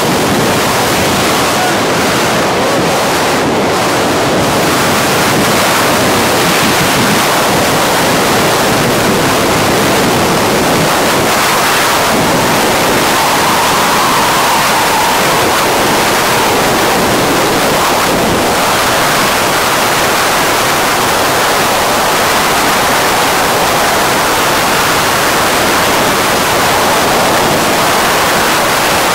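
Loud, steady rush of wind over the camera's microphone during a tandem skydive freefall, the air tearing past the falling pair.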